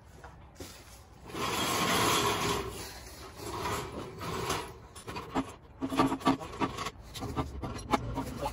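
Rough scraping and rubbing starting about a second in, then a string of small clicks and knocks: hands and tools working under the rear of a pickup truck by the rear wheel.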